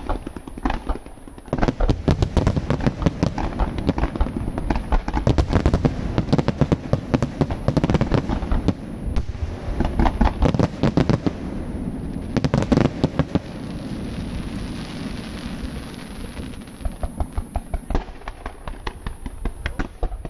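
Aerial fireworks display: a dense barrage of sharp shell bursts and bangs. About two-thirds through it turns to a hissing crackle, and it ends with a run of separate pops.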